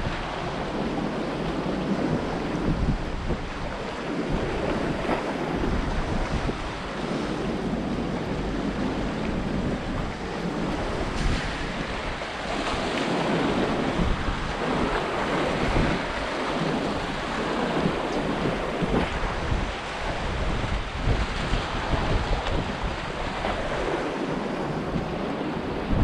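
Sea waves washing and splashing among the concrete tetrapods of a breakwater, a steady surf with wind buffeting the microphone.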